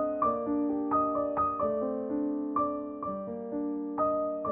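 Background piano music: single notes and chords struck every half second or so and left to ring.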